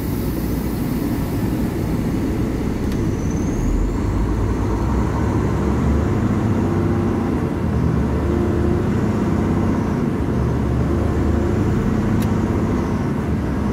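Volvo VNL860 semi-truck's D13 inline-six diesel running under way, its low engine note shifting in pitch a few times as it pulls. Two sharp clicks sound, one early and one near the end.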